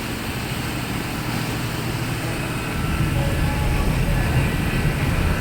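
A ferry's engines running with a steady low drone that grows louder about three seconds in, as when the engines take up more power while the ferry berths.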